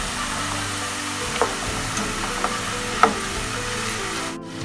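Strips of raw jackfruit deep-frying in hot oil with a steady sizzle, stirred with a perforated metal spoon that clinks against the pan twice. The sizzle cuts out briefly near the end.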